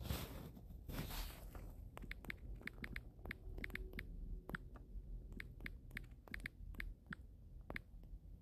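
Faint typing on a smartphone's on-screen keyboard: a quick, uneven run of light taps, several a second, from about two seconds in. Two soft swishes come just before.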